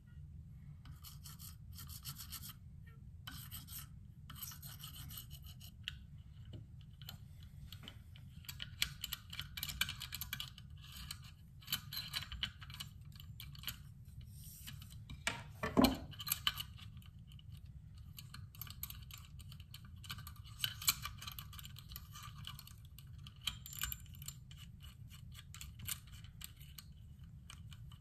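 Diamond sharpening plate on a KME guided-rod sharpener drawn along a knife's edge in many short rasping strokes. A single sharp knock about halfway through is the loudest sound.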